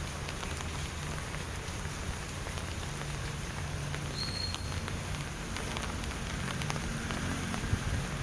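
Steady rain falling, with scattered drops striking a surface; a short high chirp sounds once about four seconds in.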